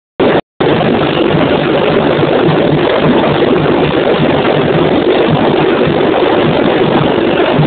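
Samba bateria (samba school drum ensemble) playing, loud and dense, as a mass of drums and percussion with no clear melody. The sound cuts out twice briefly right at the start.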